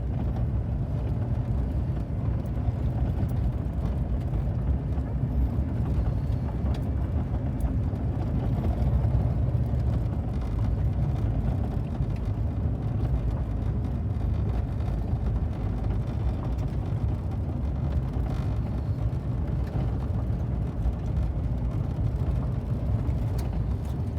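A vehicle driving at steady speed: an even low rumble of engine and tyres on the road.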